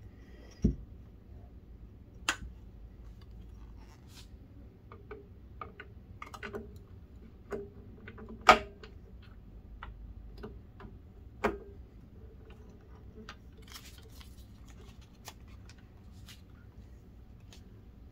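Scattered clicks, taps and knocks of hands handling the plastic parts and hydraulic hoses of a scale model excavator, the loudest click about halfway through and a dull thump near the start.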